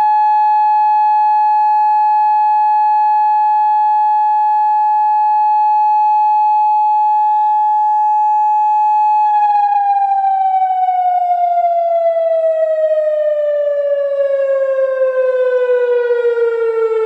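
Federal Signal Modulator 6024B electronic outdoor warning siren sounding a steady alert tone. About nine seconds in, its pitch begins a slow, even downward glide as the alert winds down.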